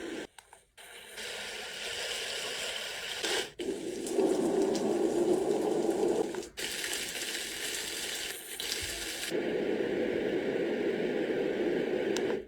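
Portable baby white noise machine playing steady rushing, water-like noise. It switches to a different-sounding noise every few seconds, with a brief break at each change.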